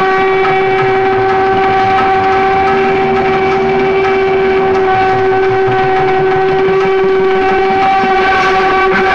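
A single long horn-like note, nearly steady in pitch and unbroken, that starts abruptly, with a low rumble beneath. It comes from the stage show's soundtrack.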